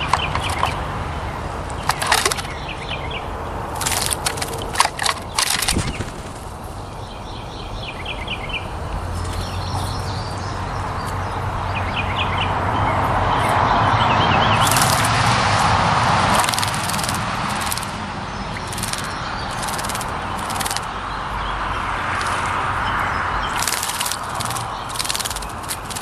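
Splashing water as a male northern cardinal bathes in a birdbath, heard as quick flicks and splashes that come thickest in the second half. Small birds chirp now and then over a steady rumble of road traffic that swells and fades about halfway through.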